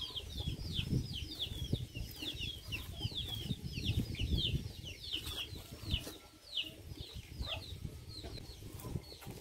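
Chicks peeping: many short, high, falling chirps, several a second, thinning out in the second half. Low rustling and knocks underneath.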